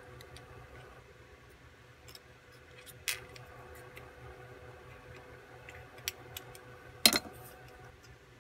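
Needle-nose pliers working the thin cut aluminum of a bottle, giving a few sharp metallic clicks and taps, the loudest about seven seconds in, over a faint steady hum.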